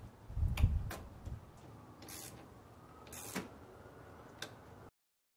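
Negative battery cable terminal being fitted onto the battery post and its nut tightened with a small ratchet: about five separate metallic clicks and clinks with some handling rumble, the sound cutting off abruptly near the end.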